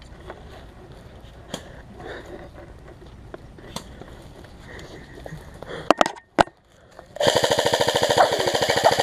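Airsoft rifle firing on full auto: a rapid, even stream of shots starts just after 7 seconds in and keeps going. It is preceded by a few sharp clicks a second earlier and a faint outdoor hiss.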